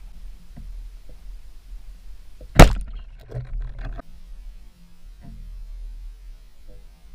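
A speargun fires once with a single sharp crack about two and a half seconds in, followed by about a second of rattling, over a steady low rumble.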